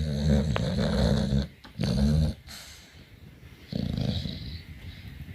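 A sleeping dog snoring with a deep rumble: one long snore, a shorter one just after, and a softer one about four seconds in.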